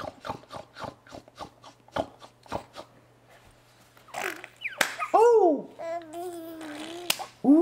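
Light hand claps, about three a second, for the first two and a half seconds. After a short pause, a high-pitched voice makes playful rising-and-falling calls and a held note.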